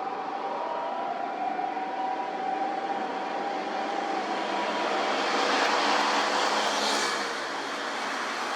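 Emergency vehicle siren trailing off, its steady tones fading out about four seconds in. A vehicle then passes close with a rush of road noise that swells and falls away.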